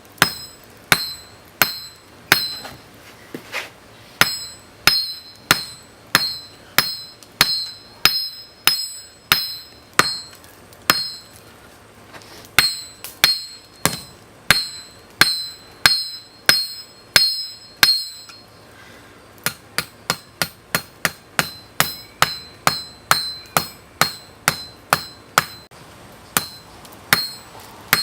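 Hand hammer striking hot spring steel on an anvil, an even run of ringing blows about two a second. After a short break past the middle the blows come quicker, about three a second.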